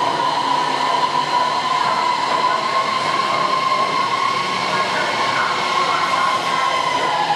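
Dalian Metro electric train running past the platform, heard through the glass platform screen doors: a steady rumble of wheels on rail under a high electric motor whine that drops slightly in pitch near the end.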